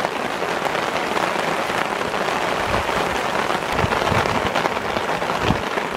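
Steady rain falling, an even hiss of drops throughout.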